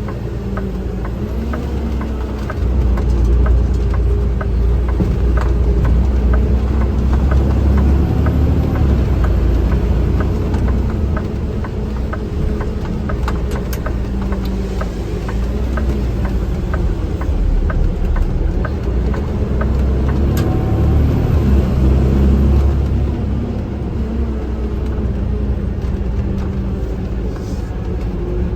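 Vehicle engine and road noise heard from inside the cab while driving, a steady low rumble that grows louder about three seconds in as the vehicle speeds up and eases off again after about twenty-three seconds.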